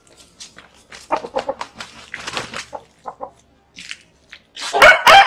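Bangkok fighting rooster giving a few short, soft clucks and clicks, then breaking into a loud crow near the end.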